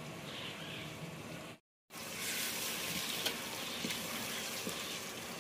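Onions frying in ghee in a pot over a wood fire: a steady sizzle that starts after an abrupt cut about a second and a half in, with a few light clicks as the ladle stirs the pot.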